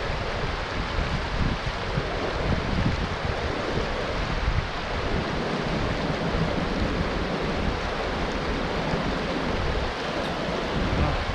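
Small mountain creek rushing steadily over rocks and a little cascade, with gusts of wind buffeting the microphone in uneven low rumbles.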